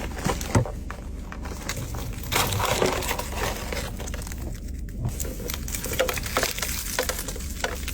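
Close-up crunching of someone biting and chewing crispy KFC fried chicken: a steady run of irregular, crackly crunches.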